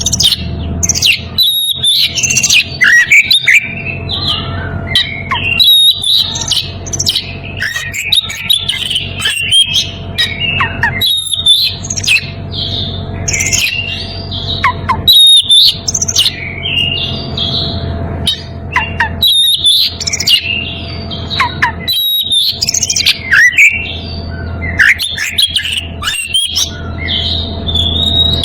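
Oriental magpie-robin (kacer) singing loudly and almost without pause, a rapid run of varied whistles and chattering notes broken by short gaps: the full song of a male in breeding condition, used to challenge a rival. A steady low hum runs underneath.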